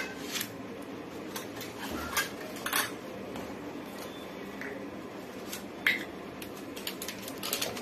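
Scattered light clinks and knocks of steel kitchenware: a spoon and small containers being handled and set down, with a sharper clink about six seconds in.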